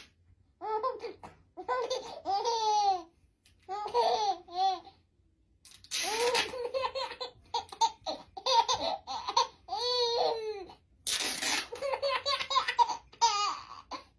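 Baby laughing in repeated fits of high-pitched giggles, separated by short pauses, with louder breathy outbursts about six and eleven seconds in.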